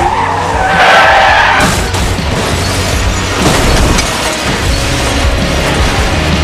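Car tyres squealing in a skid for the first second and a half or so, then a long crash as the car rolls over, metal and glass smashing, under dramatic music.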